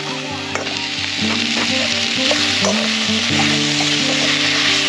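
Chicken, onions and carrots sizzling in a steel wok over a wood-burning rocket stove as they are stir-fried, with the metal spoon clicking and scraping against the pan now and then.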